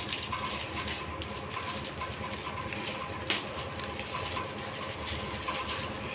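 Crinkling and rustling of shiny gift wrapping paper being unwrapped by hand, with one sharp crackle about three seconds in, over the steady hum of an electric fan.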